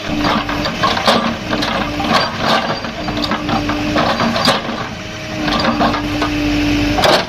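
JCB excavator working: a steady mechanical tone that comes and goes over the engine, with many sharp knocks and crunches throughout and one loud crack near the end.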